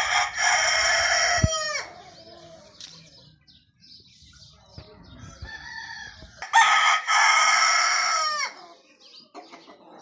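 Desi (Pakistani village) rooster crowing twice, each crow about two seconds long and ending on a falling note, with soft hen clucking between the crows.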